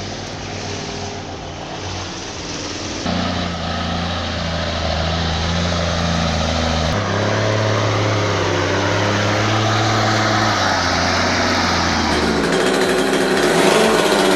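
Heavy truck's diesel engine working under load, a steady drone whose pitch shifts about three and seven seconds in. Near the end a busier, higher-pitched engine sound takes over.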